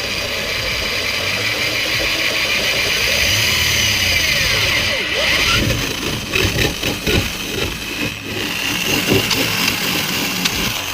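Power drill running at speed, boring holes through the car's trunk lid. The motor note wavers and grows choppier about halfway through.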